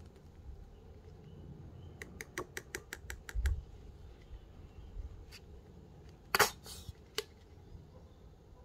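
A nearly empty plastic squeeze bottle of diluent cream being squeezed onto a plastic spoon: a quick run of small plastic clicks, a low thump, then a short spluttering squirt of air and cream as the bottle runs out, followed by one more click.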